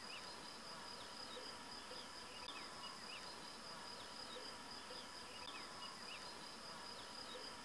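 Faint outdoor background: a steady high-pitched whine that stops near the end, with scattered faint chirps.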